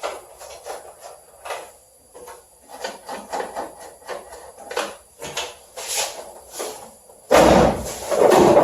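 A replacement car quarter panel being handled and offered up against the body: scattered light clicks and knocks, then a loud, rough handling noise starting about seven seconds in.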